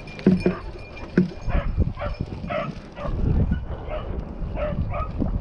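Rabbit-hunting dog barking in a run of short barks, about two a second.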